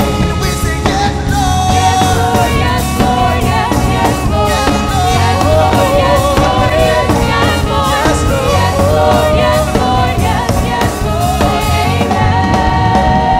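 Live gospel praise-and-worship music: singers carrying a melody over band backing with a steady beat.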